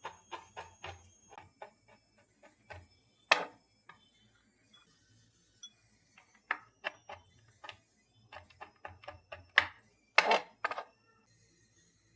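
Hard objects being handled: irregular runs of light taps and clinks like kitchenware set down and moved, with a louder knock about three seconds in and a short clatter near the end.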